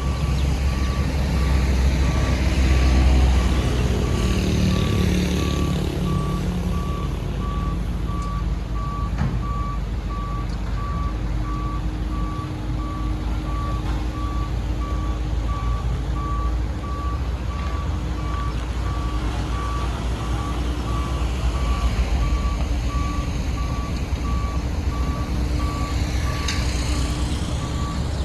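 A construction vehicle's reversing alarm beeping steadily in a single repeated tone over the low rumble of diesel engines; the rumble swells in the first few seconds.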